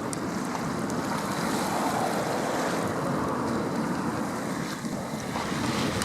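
Wind buffeting the microphone over steady ocean surf.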